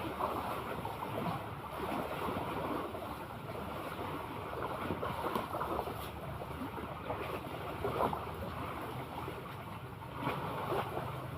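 Sea waves washing and lapping, with wind buffeting the microphone.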